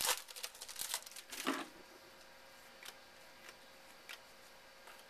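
A trading-card pack wrapper crinkling and tearing as the pack is opened, in the first second and a half. A few faint clicks of the cards being handled follow.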